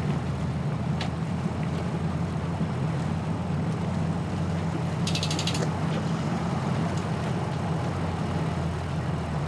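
Engine running steadily at a low, even drone, with a brief run of rapid, evenly spaced clicks about five seconds in.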